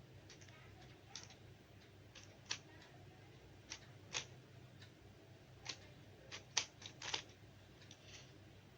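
Faint, irregular clicks of a plastic 3x3 Rubik's cube's layers being turned, a dozen or so quick turns at uneven spacing, over a low steady hum.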